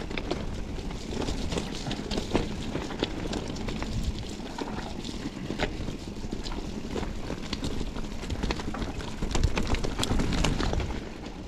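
Mountain bike rolling down a wet dirt trail: tyre noise with frequent clicks and rattles from the bike over rough ground, and wind on the microphone. It gets louder for a couple of seconds near the end.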